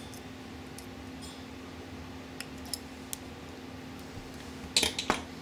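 Needle-nose pliers clicking on thin 22-gauge wire as it is bent into a small hook: a few light ticks, then a quick cluster of louder clicks near the end.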